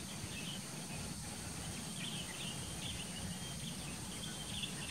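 Faint outdoor ambience: scattered short bird chirps over a low, steady background rumble.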